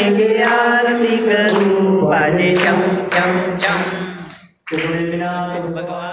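A group of women singing a devotional song in unison without instruments, with hand claps keeping time about once a second. The sound cuts out briefly about four and a half seconds in, then the singing resumes.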